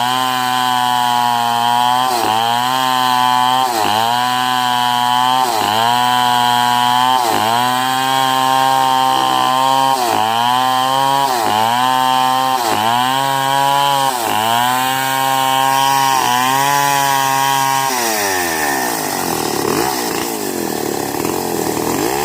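Two-stroke chainsaw ripping a medang log lengthwise at high revs. Its note dips briefly and recovers about once a second. About 18 seconds in the pitch falls and wavers.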